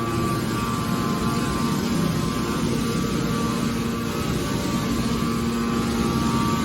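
Hydraulic metal baler running: a steady machine hum from its hydraulic power unit over a noisy rumble. The hum's low tone fades for a couple of seconds midway, then comes back.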